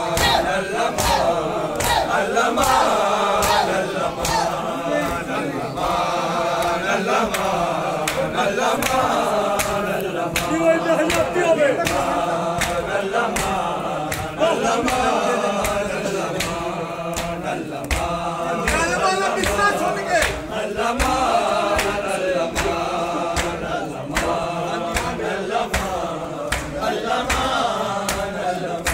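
Men's voices chanting a noha together in a repeating melodic line, kept in time by a steady beat of open-hand chest strikes (matam) from the mourning crowd.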